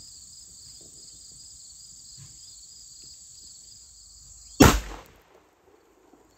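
A steady, high insect chorus, cut through about four and a half seconds in by a single loud 12-gauge shotgun blast from an Aksa S4 semi-automatic. The blast dies away within about half a second.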